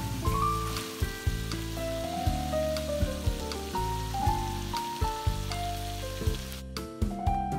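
Cubed pumpkin and ground meat sizzling as they fry in oil in a frying pan. The sizzle thins out near the end. Background music with sustained melodic notes plays over it.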